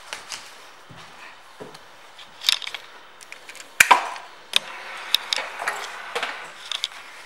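Scattered sharp clicks and light knocks, the loudest about four seconds in, as a hand works the ignition key switch of a 2013 Triumph Trophy motorcycle, with handling noise around it.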